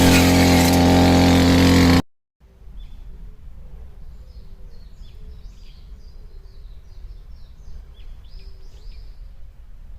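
A brush cutter's small engine running at a steady high speed, cut off abruptly about two seconds in. Then small birds chirp over a low background rumble.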